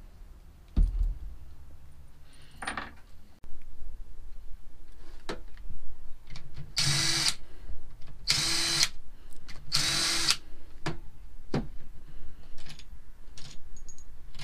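Cordless power driver spinning out the bolts of a K24 oil pump and balancer housing: three short runs of about half a second each, separated by a second or so, with scattered knocks and clicks of bolts and tools being handled around them.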